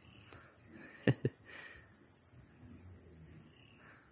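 Steady high-pitched trilling of insects, with two quick knocks close together about a second in.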